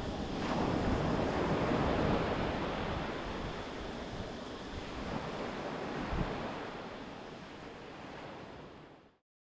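Sea waves washing on a shore with wind buffeting the microphone, fading away over the last few seconds and then cutting off.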